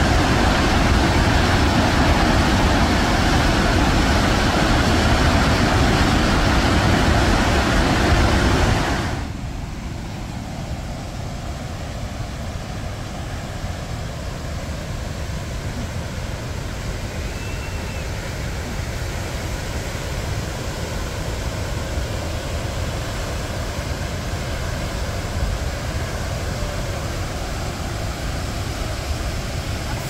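Victoria Falls on the Zambezi River: the water pouring over the gorge makes a dense, steady rush. About nine seconds in, the sound drops suddenly to a quieter, more distant rush.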